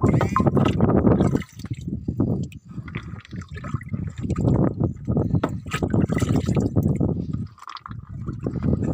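Water being scooped and poured with a small plastic container into a water-filled liner, in several splashing pours broken by short pauses, as shrimp fry are acclimated to new water.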